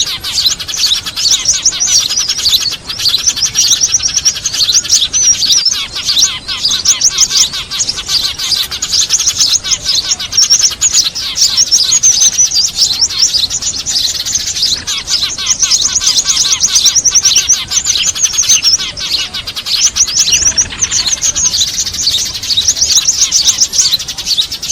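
Dense, continuous chattering of a flock of small birds, Eurasian tree sparrows among them, with rapid high chirps overlapping without pause. It is a bird-lure call used to draw small birds in for trapping.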